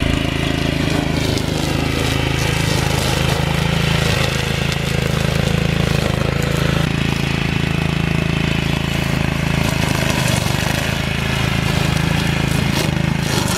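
Tekna TR 60 wheeled string brush cutter's 6.5 hp petrol engine running steadily at working speed, with its trimmer line head spinning.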